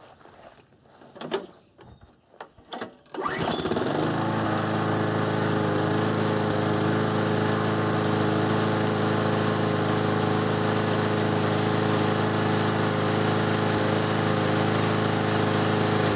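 6 hp Briggs & Stratton lawn mower engine pull-started about three seconds in, catching at once and then running steadily at one even speed, with a few knocks from handling before the pull. The governor spring has been tightened to raise the governed engine speed.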